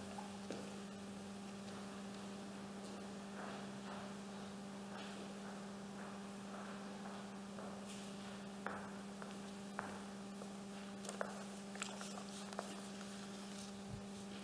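Steady low electrical hum, a mains-type buzz, with a few faint knocks in the second half.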